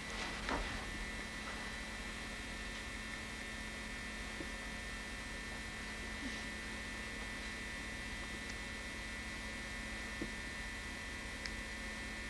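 Steady electrical hum with a faint high whine, no speech; a brief faint sound about half a second in.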